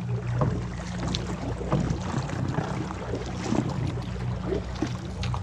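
Small boat motor running steadily at low speed, with scattered short knocks.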